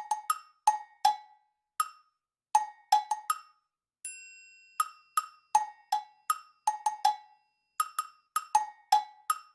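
Background music of wood-block percussion: short hollow knocks at two pitches, high and low, tapped in a loose, skipping rhythm. A single ringing note sounds and fades about four seconds in.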